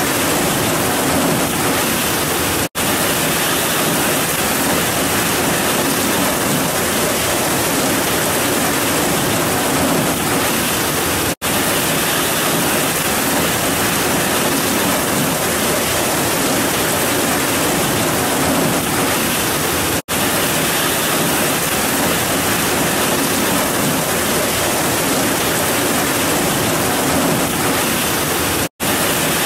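Heavy rain pouring steadily, a dense even hiss with no thunder. The sound cuts out for an instant four times, about every nine seconds.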